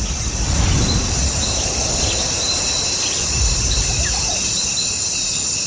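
Night forest ambience: insects chirring steadily in high, pulsing trills, with a few short bird calls about four seconds in, over a low rumble that fades out.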